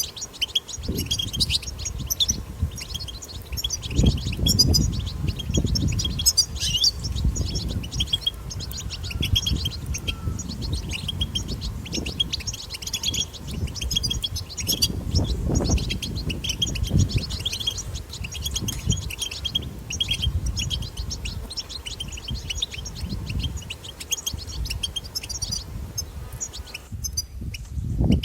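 European goldfinch twittering: a fast, continuous stream of bright chirps and trills that breaks off near the end, with a low rumble underneath.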